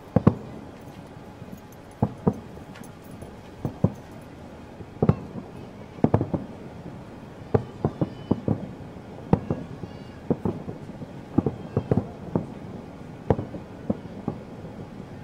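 Aerial fireworks going off in an irregular string of sharp bangs, sometimes two or three in quick succession, over a steady background rumble.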